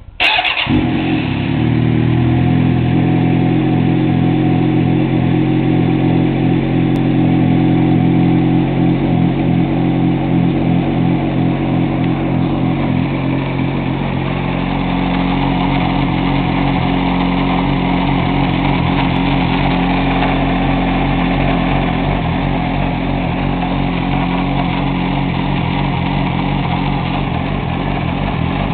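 Vehicle engine catching suddenly and settling into a steady idle. It is run to show a grinding noise the owner calls weird.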